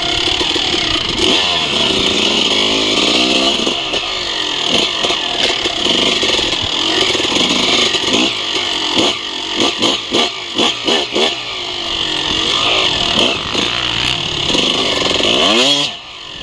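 Suzuki RM250 two-stroke single-cylinder dirt bike engine revving up and down as it is ridden along a trail, its pitch rising and falling with the throttle. Around the middle the throttle is blipped in a quick string of short bursts, and near the end it closes off briefly before one more sharp rev.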